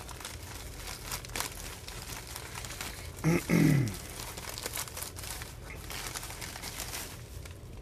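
A plastic poly mailer with bubble lining being torn open and crinkled by hand: continuous crackling and rustling of plastic. About three seconds in, a short low hum of a voice, falling in pitch, stands out above it.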